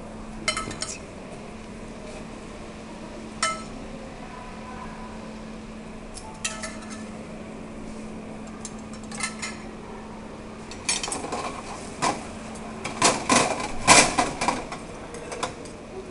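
Metal spoon and fork clinking against a steel sauté pan as pasta in cream sauce is stirred and tossed over a gas burner: a few scattered clinks at first, then a quick run of clinks in the last few seconds. A steady low hum lies underneath.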